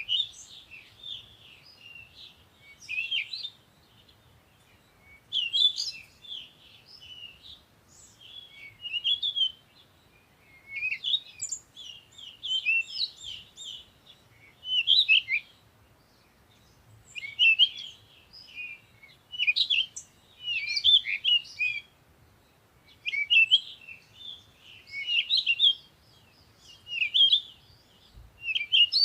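Songbird singing: short phrases of quick, high chirping notes, repeated every two to three seconds with brief pauses between.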